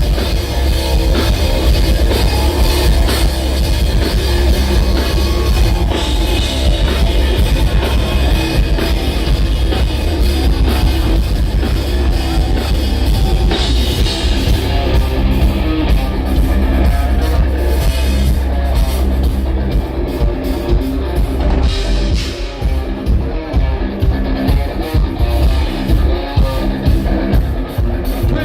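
Heavy rock band playing an instrumental break: distorted electric guitars, bass and a pounding drum kit. In the last several seconds the playing turns choppy, with short stops between hits.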